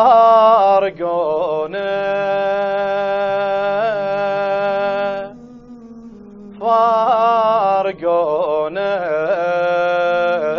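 A man's voice singing an Iraqi Arabic lament in slow, drawn-out, ornamented phrases over a low steady drone. One note is held for about three and a half seconds, followed by a pause of over a second before the next phrases.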